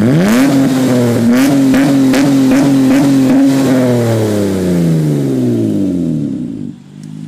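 A 2010 Honda Accord's 3.5-litre V6 breathing through an HKS Hi-Power exhaust is revved hard. It climbs fast, is held high for about three seconds, then falls slowly back to idle near the end.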